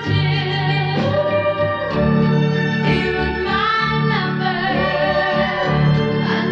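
Music: a 1964 pop record, a sung vocal line over bass and backing instruments, with a held, wavering sung note a few seconds in.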